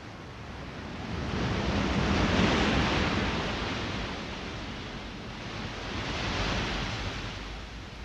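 Ocean waves washing in: two swells of surf that rise and fall about four seconds apart, the first louder than the second.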